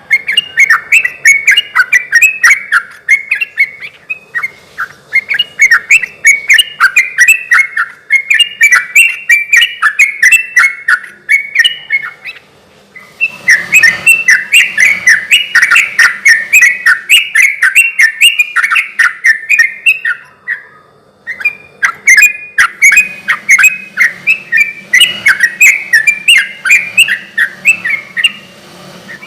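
Yellow-vented bulbul (trucukan) singing in full, lively song: long runs of rapid, bubbly chattering notes, broken by two short pauses, one near the middle and one about two-thirds through.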